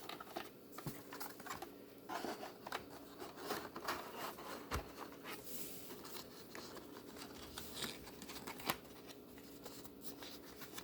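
Hands handling plastic VHS cassettes and small tools: a scattering of light clicks, taps, scrapes and rustles.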